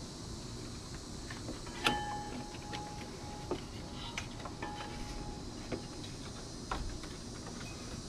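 Light scattered clicks and taps from a serpentine belt being worked by hand around the engine's pulleys, engine off, with a sharper knock about two seconds in.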